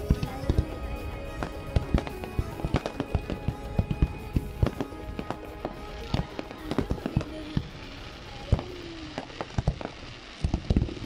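Aerial fireworks bursting: many sharp bangs in rapid, irregular succession. They thin out briefly about eight seconds in, then a fresh cluster comes near the end.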